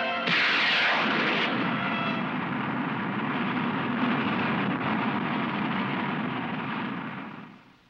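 Cartoon sound effect of a rocket blasting off and flying: a sudden loud rushing noise that runs steadily for several seconds, then fades out near the end.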